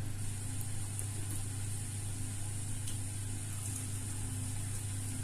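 A small motor running with a steady low hum and a faint high whine that comes in just after the start, with a few faint clicks.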